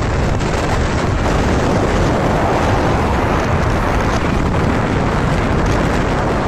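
Steady rush of wind buffeting the microphone, mixed with the running noise of a moving vehicle.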